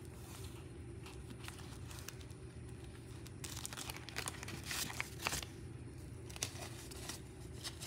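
Soft crinkling and rustling of a clear plastic zipper pouch in a cash binder being opened and handled, along with paper bills being picked up. The handling noises come a little more often and louder around the middle.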